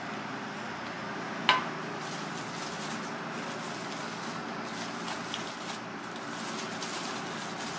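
Aluminium foil crinkling in irregular small crackles as it is folded and crimped shut by hand around a parcel of fish and mushrooms, over steady background noise. One sharp click about a second and a half in.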